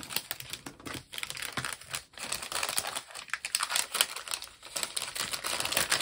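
Clear cellophane packaging crinkling and rustling as a craft kit is packed back into it by hand, with a dense run of small irregular plastic clicks and taps.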